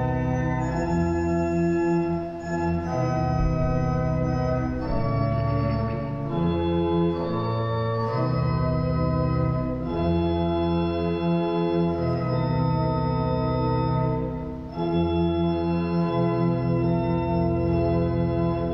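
Church organ playing a slow hymn-like piece in held chords that change every one to two seconds.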